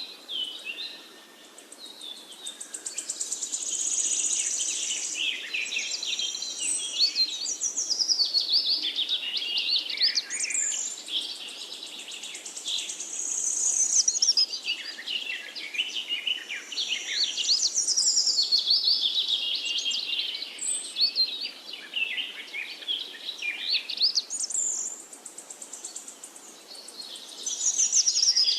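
Songbirds singing: long, fast, high-pitched warbling phrases that sweep up and down, coming in spells of several seconds with short quieter gaps between them.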